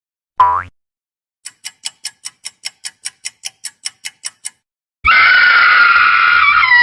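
A string of comedy sound effects: a brief rising sweep, then a run of quick, evenly spaced clock-like ticks at about five a second, then a loud sustained scream that drops in pitch at the very end.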